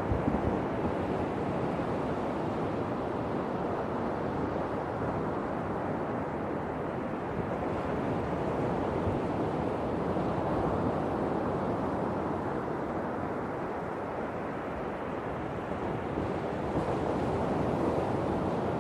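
Sea waves washing in a steady rush, slowly swelling and easing; the surge dips a little late on and then builds again.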